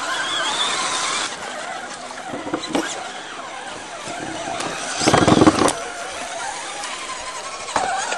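Electric motors and gears of radio-controlled scale 4x4 trucks whining and changing pitch as they crawl through mud and shallow water, with a louder rush of noise about five seconds in.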